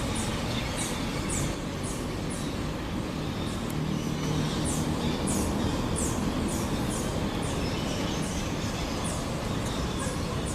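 Riverside outdoor ambience: a steady low rumble with short, high chirps repeating about once or twice a second.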